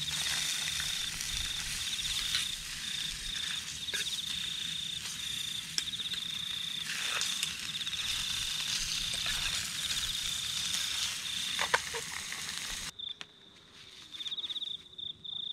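Crickets chirping in repeated short, high-pitched trills, over a steady hiss with a low hum and a few sharp clicks. The hiss and hum stop abruptly near the end, leaving the chirping.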